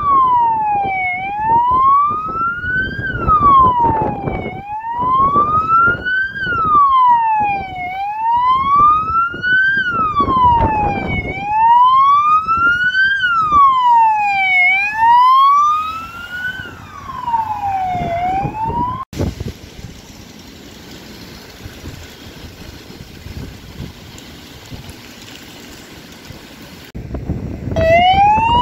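Wail siren of a fire brigade Ford Transit rescue van on an emergency run, rising and falling slowly about once every three and a half seconds. It stops abruptly about two-thirds of the way through, leaving a quieter steady rushing noise for several seconds, then starts wailing again near the end.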